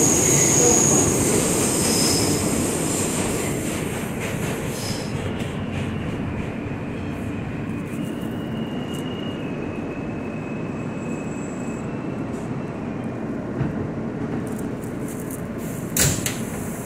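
R160 subway train braking into a station: the running rumble and a high wheel squeal fade as it slows, with a thin steady whine in the middle. A single sharp knock comes near the end as it stops.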